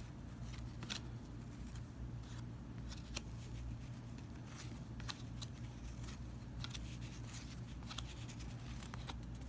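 Faint, scattered clicks and light rustles of baseball cards being handled and flipped through, over a low steady hum.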